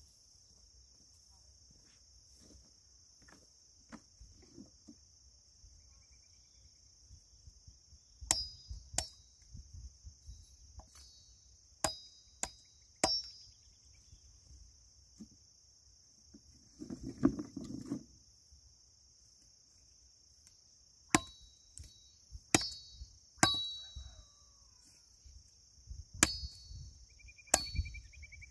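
Machete chopping cassava stems (maniva) into planting cuttings: sharp chops in groups of two to four, each with a brief metallic ring. A steady high insect buzz runs underneath.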